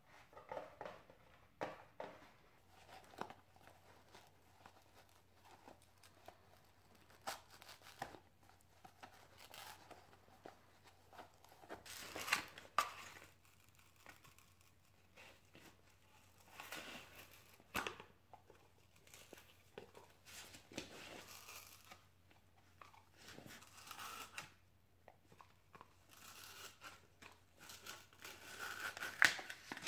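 Akita dog tearing and chewing a piece of paper: irregular bursts of ripping and crinkling with crunchy bites, the loudest about twelve seconds in and again near the end.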